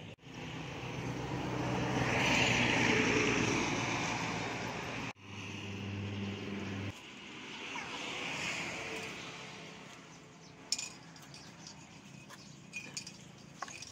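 A motor running in the background, swelling and fading twice and breaking off abruptly in between, followed by a few sharp clicks near the end.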